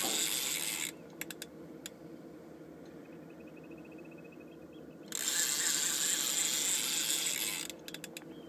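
Fishing reel wound in fast on braided line while a heavy coalfish is pumped up from deep water: a steady whirring hiss that stops about a second in and starts again for about two and a half seconds past the middle. In the lull, as the rod is lifted against the fish, there are a few sharp clicks and a faint rapid ticking from the reel.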